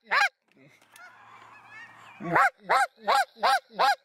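Goose call blown by a hunter, imitating Canada goose honks in quick, evenly spaced loud notes, each rising and falling in pitch. One honk comes at the very start, then a run of about five from just over two seconds in. Between them, fainter high chatter of geese.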